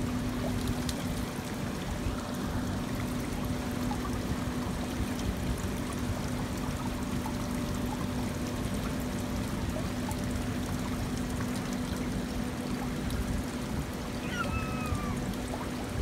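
Water running and trickling down the face of a stacked-stone water-wall fountain: a steady, even pouring sound with a steady low hum underneath.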